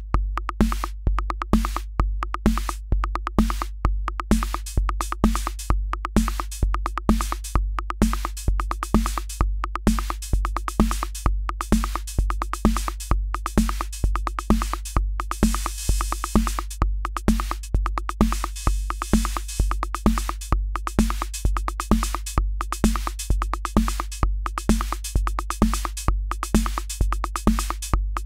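Akai Rhythm Wolf analog drum machine playing a looped electronic beat, with a deep steady low end under short, evenly repeating drum hits and clicks. A hiss-like noise swells in the high end about halfway through, then fades back.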